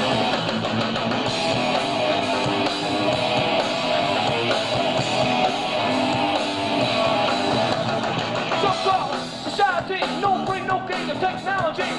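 Hardcore punk band playing live: loud electric guitar and drums, heard through a camcorder's built-in microphone. Shouted vocals come in near the end.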